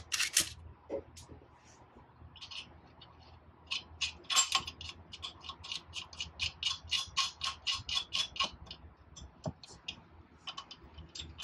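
A couple of sharp clacks at the start, then a run of light metallic clicks, about four or five a second, as nuts are spun by hand onto the hinged retaining bolts that hold a jet pump's access cover down.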